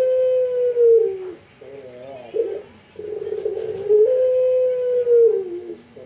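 Puter pelung (long-cooing Barbary dove) cooing: two long, drawn-out coos, each sliding down in pitch at its end, with a short wavering note between them.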